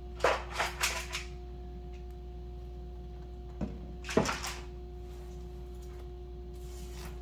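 A few light clicks and knocks of small parts being handled, in two short clusters, over a steady hum.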